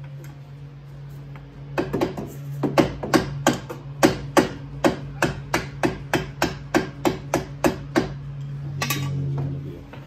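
A red dead-blow hammer strikes the front strut and knuckle of a car in a run of about two dozen quick blows, about four a second. The blows start about two seconds in and stop about eight seconds in, over a steady low hum. This is the work of knocking a strut out for replacement.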